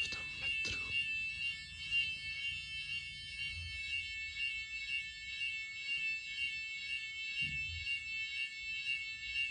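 Hotel fire alarm sounding one continuous, high-pitched electronic tone: a false alarm.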